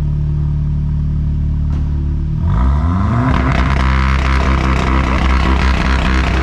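Volkswagen Golf 7R's turbocharged four-cylinder idling steadily, then about two and a half seconds in rising quickly and held at high revs for a launch control start, with a rapid crackle of exhaust pops over the held note.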